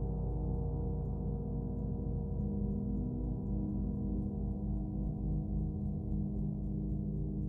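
Earth and Moon gongs ringing on together in a steady wash of many overlapping low tones, with no fresh strike, and the deepest hum pulsing slowly.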